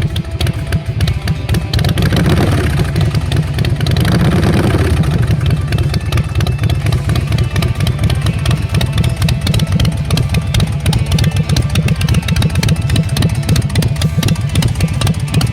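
2005 Big Dog chopper's V-twin engine idling with a steady pulsing beat, the revs rising briefly about two to four seconds in.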